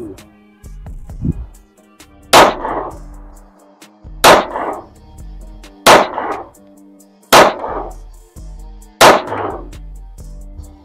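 Five single shots from a compact 9mm pistol, fired deliberately about every one and a half to two seconds, the first about two seconds in, each with a short ringing tail. Background music with a steady low beat plays underneath.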